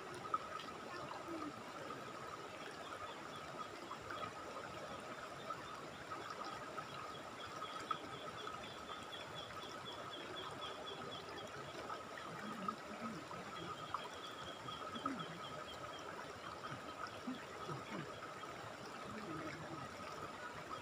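Shallow river running over rocks, a steady faint rush of water. A faint, rapid high pulsing sound comes in a few seconds in and stops again after the middle.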